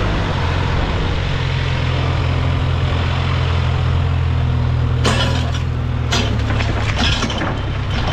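Diesel engine of a Case backhoe loader running steadily under load. From about five seconds in, a series of crackling, clattering rushes sounds as loose material is tipped from the bucket into the truck.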